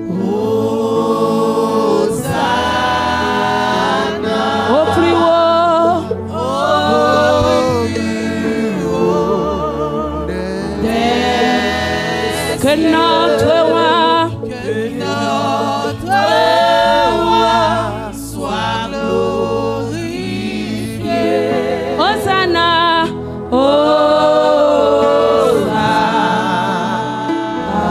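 Gospel worship song sung by women into microphones, in long phrases with wavering held notes, over a sustained instrumental backing.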